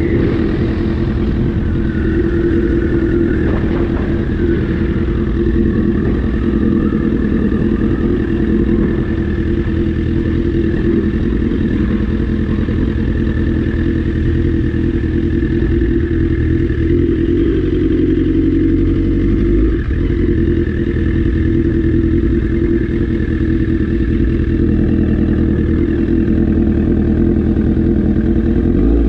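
2008 Yamaha R6 inline-four engine through an Akrapovic megaphone exhaust, running steadily at a low cruise with slight rises and falls in pitch.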